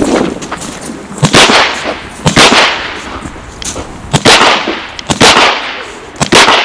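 Handgun shots fired at a pistol match: about five loud, sharp cracks, roughly one a second, each with a brief echo trailing after it.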